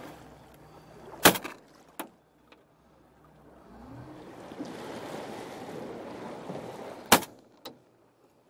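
Two shotgun shots about six seconds apart, each a single sharp report followed about half a second later by a fainter short crack. Faint hiss of water and wind between them.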